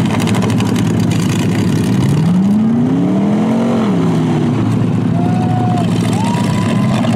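Demolition derby trucks' engines running hard under a steady rumble. One engine revs up, rising in pitch for about two seconds before falling back, and a higher whine sounds twice near the end.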